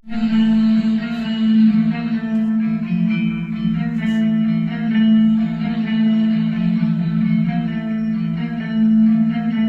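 Music with plucked guitar-like strings over a held low note, played through a 5.1 amplifier and its speakers as a sound test.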